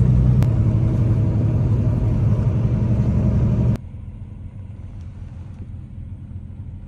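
Semi truck's engine and road noise heard inside the cab while driving, a steady low drone. It cuts off abruptly a little before halfway, leaving a much quieter low hum.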